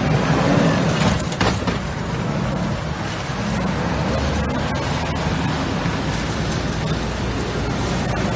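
Heavy snow plow dump truck passing close at low speed: diesel engine running and tires working through snow and slush, with a couple of clanks about a second in.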